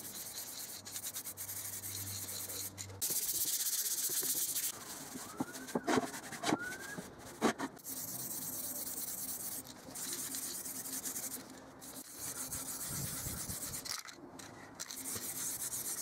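Aerosol can of spray varnish hissing in bursts of a second or two as a coat is sprayed onto the wooden stands.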